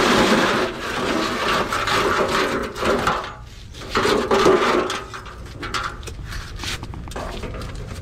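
A shovel scraping in a steel wheelbarrow: one long scrape of about three seconds, a shorter one about four seconds in, then lighter knocks and clicks.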